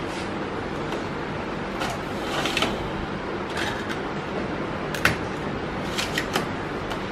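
A CD being loaded into a Fujitsu laptop's disc drive tray and the tray pushed shut: a run of short plastic clicks and rattles, the sharpest about five seconds in and a quick cluster about a second later, over a steady background hiss.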